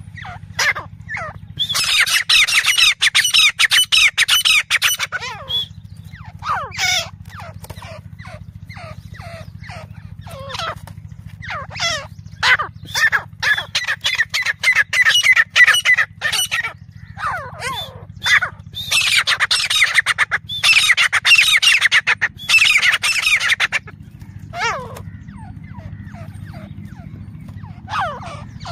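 Grey francolin calling: three long runs of loud, rapidly repeated shrill notes, each lasting several seconds, with scattered single notes in between.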